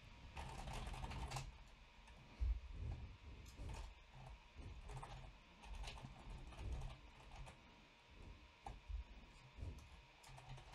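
Faint computer keyboard typing: irregular keystrokes while code is edited.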